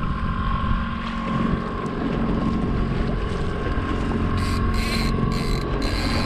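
Outboard motor running steadily at trolling speed, with wind rushing over the microphone and a few brief hisses in the second half.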